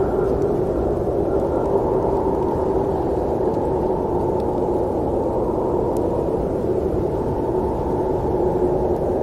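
Steady rumble of a moving train, an even noise with a faint hum running through it.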